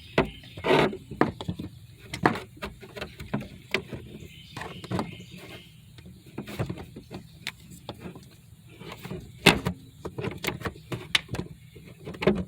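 Irregular clicks, knocks and scrapes of hand tools and parts being worked in a car's engine bay during a blow-off valve install, with one louder knock about a second in and another late on.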